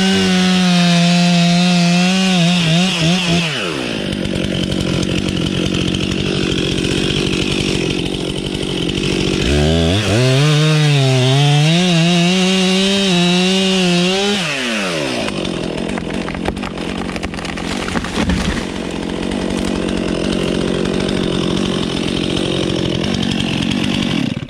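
Two-stroke chainsaw at full throttle cutting poplar wood, its engine pitch wavering under load. It drops off after a few seconds, revs back up sharply and cuts again, then drops off once more, running on more steadily and lower.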